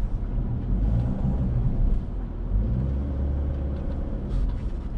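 Low, steady rumble inside the cabin of a Subaru SUV as it is driven slowly over a rough dirt course: engine and tyres running over uneven ground.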